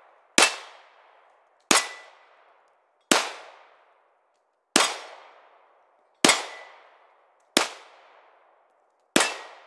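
Seven single shots from a SCCY CPX-2 9mm hammer-fired pistol, fired slowly about a second and a half apart. Each shot has a quick echoing decay, and several carry a brief ring from steel plate targets being hit.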